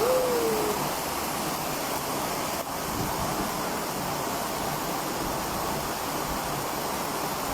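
Steady, even rush of storm water in a torrential downpour, as of heavy rain and running floodwater.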